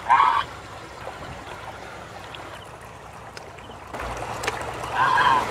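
A goose honking in short calls, once at the start and again near the end, over the steady rush of running river water.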